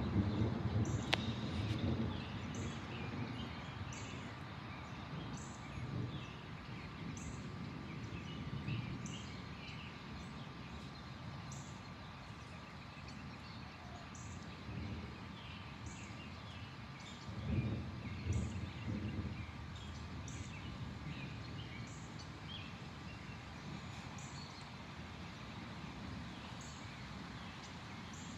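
Distant thunder rumbling low, fading over the first two seconds, with a second short rumble about seventeen seconds in. Birds chirp throughout, and a faint high chirp repeats steadily.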